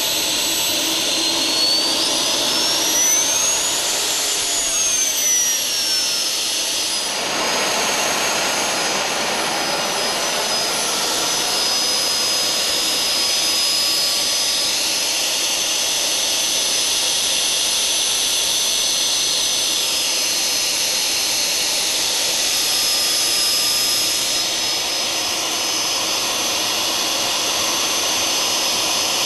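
Homebuilt GR-7 experimental turbojet engine running loudly with a steady rush and a high turbine whine. The whine climbs in pitch during the first few seconds as the engine spools up, then falls back and holds a steady pitch for the rest.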